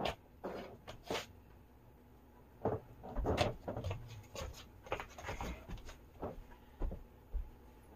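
Scattered light knocks and short rustles of a blanket being handled and people moving about.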